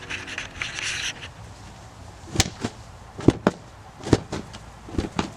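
Brief rustling, then about six sharp knocks and bangs, as things are handled and set down while the van is being tidied and set up.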